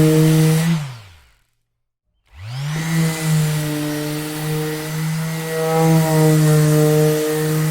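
Electric orbital sander running, switched off under a second in so its motor hum falls in pitch and dies away, then after about a second of silence switched back on, its hum rising in pitch as it spins up and then running steadily.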